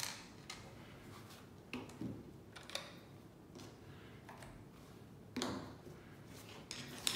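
Scattered light clicks and knocks of hands working a plastic robot vacuum with a screwdriver: backing screws out of its underside and setting the screwdriver down on the table.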